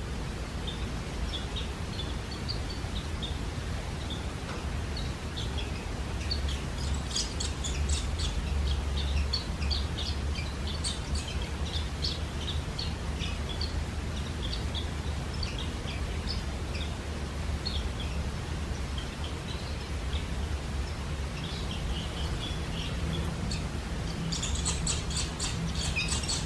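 Barn swallow nestlings, eight days after hatching, chirping in the nest: many short, high-pitched calls, in denser flurries twice, over a steady low rumble.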